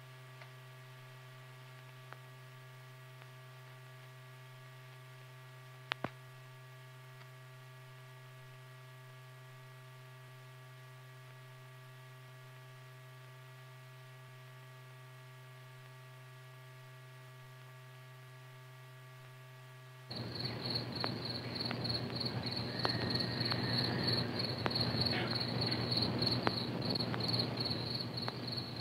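A steady low electrical hum with a faint click or two, which cuts off suddenly about twenty seconds in. It gives way to crickets chirping in a fast, continuous trill over a hiss.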